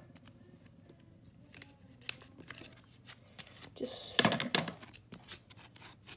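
Sticky tape pulled off the roll and torn off, a brief noisy rip about four seconds in, with light paper rustling and small clicks of handling around it.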